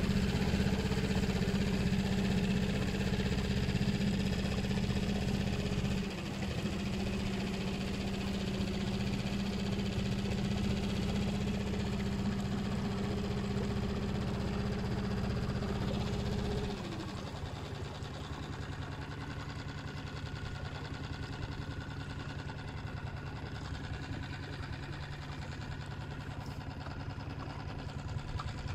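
Boat motor running steadily, easing off briefly about six seconds in, then dropping to a lower, quieter speed at around seventeen seconds.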